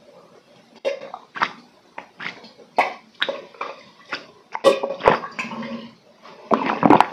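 Close-miked gulping as a man chugs a clear ion drink straight from a plastic bottle: a steady run of loud separate swallows, about three a second, starting about a second in.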